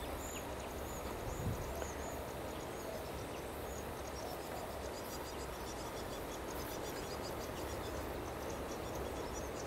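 Quiet outdoor ambience: a steady low rumble with faint, high-pitched chirps and ticking throughout.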